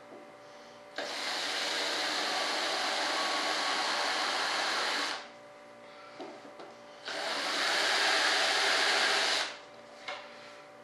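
A power tool runs in two bursts, about four seconds and then about two and a half seconds. Each starts suddenly and winds down as it stops.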